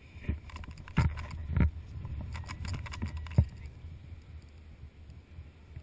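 Handling noise from the camera and harness gear after a tandem parachute landing: a few sharp knocks, the loudest about a second in and again just after, another about three and a half seconds in, over rustling and a low rumble of wind on the microphone.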